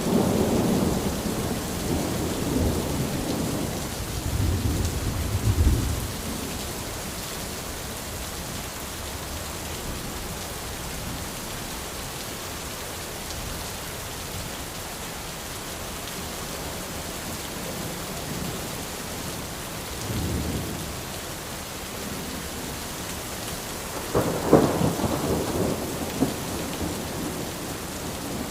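Steady rain falling on an umbrella, with low rumbles of thunder through the first six seconds, briefly about twenty seconds in, and again near the end.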